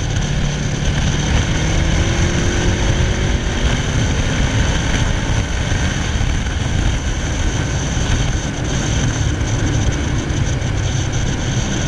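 Ducati Hyperstrada L-twin engine running under way, heard through heavy wind buffeting on an on-bike microphone, with the engine note rising faintly over the first few seconds.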